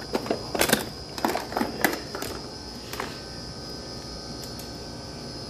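Tools and test leads clattering and clicking as a hand rummages through a plastic toolbox: a run of sharp knocks in the first two seconds or so and one more about three seconds in, then only a faint steady hum with a thin high tone.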